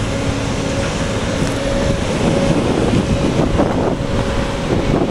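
JCB 457ZX wheel loader's diesel engine running steadily as the loader backs across a bunker of grass silage.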